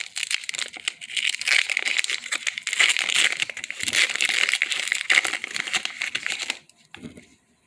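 A foil Pokémon card booster pack crinkling as it is handled and opened. The crinkling runs steadily and stops abruptly a little before the end.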